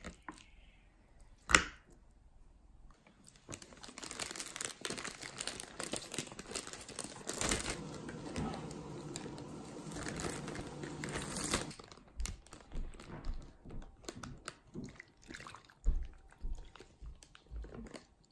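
Plastic zip-lock bag crinkling for several seconds as raw chicken pieces are handled into it, after a single sharp clink about a second and a half in; scattered light knocks and taps follow near the end.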